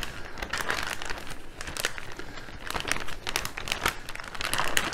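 Plastic expandable vacuum-sealer bag crinkling in irregular crackles as a whole raw chicken is pushed and slid into it by hand.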